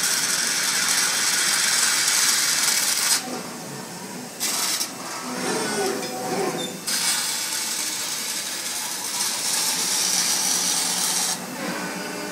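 Robotic laser welding head hissing steadily while it welds, in two runs of about four seconds each with a brief half-second burst between them. Between the welds there is quieter machine noise as the robot arm repositions.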